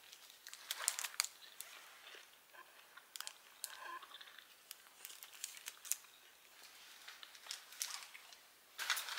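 Faint crinkling and rustling of shopping bags being handled, with scattered sharp crackles.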